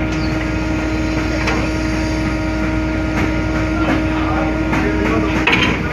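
A ferry's engines running steadily: a low rumble with a constant hum, and a few faint knocks over it.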